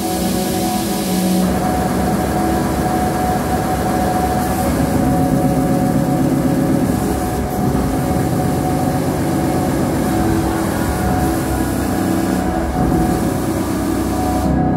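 Live electronic noise and ambient music: a loud, dense rumbling drone layered with many steady held tones, its upper hiss falling away about a second and a half in.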